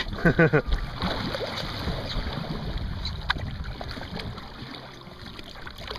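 Water sloshing and splashing at a boat's side around a huge hooked Goliath grouper at the surface, with wind on the microphone. A brief voice sounds at the very start, and there is one sharp knock about three seconds in.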